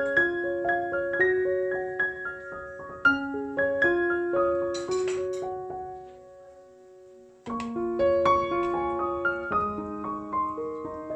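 Background piano music: a gentle melody of single notes that stops for about a second and a half just past the middle, then starts again.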